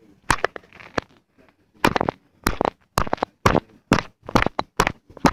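A quick series of sharp knocks or bumps, about two a second, some in close doubles.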